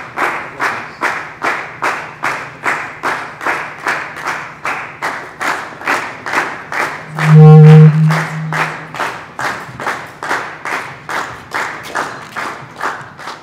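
Audience clapping together in a steady rhythm, about two and a half claps a second, with a loud low hum for about a second and a half around the middle.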